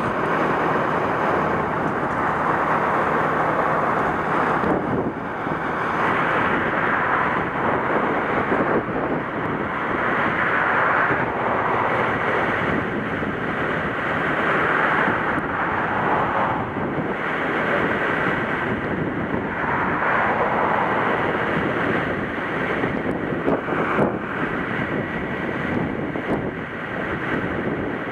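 Wind buffeting the microphone, rising and falling in gusts, with ocean surf behind it.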